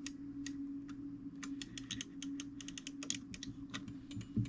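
Rapid, irregular small metallic clicks from an antique fusee clock movement as its brass cable is wound onto the fusee by hand, most dense in the middle, over a steady low hum.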